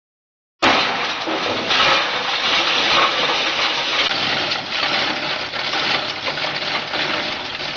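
Meat and bone grinding machine crunching its load: a dense, steady rattle of many small cracks and clicks that starts abruptly under a second in.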